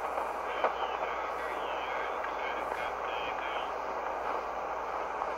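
Static and hiss from a shortwave receiver tuned to the 40-metre amateur band at 7.267 MHz, steady between transmissions. There is a short crackle about half a second in and a faint warble from a weak signal over the next few seconds.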